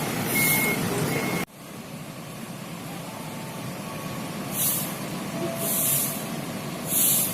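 Short electronic beeps repeat evenly for about a second and a half, then stop with an abrupt cut. After that a bus's air brakes hiss in short bursts about once a second over a low rumble.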